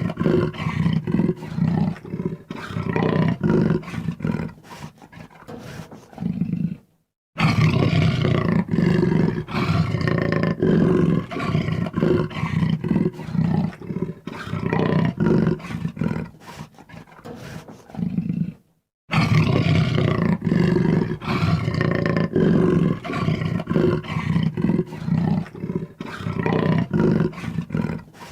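Jaguar calling in long runs of short, rough, rhythmically repeated grunts, the big cat's rasping call. It cuts out to dead silence twice, a few seconds in and again about two-thirds of the way through, where recordings are joined.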